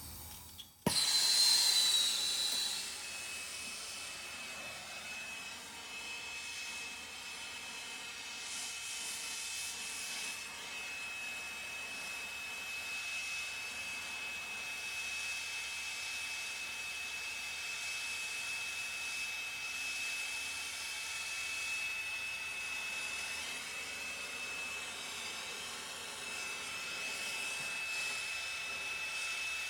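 Soldering torch lit with a sudden start about a second in, then its flame hissing steadily with a thin high whistle while it heats a copper pipe fitting for soldering.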